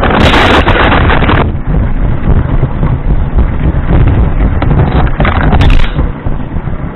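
Lego 12-volt train running along its track, heard from a camera riding on board: a steady rattling rumble of motor and wheels, with a louder hissing burst over the first second and a half and a shorter one near the end.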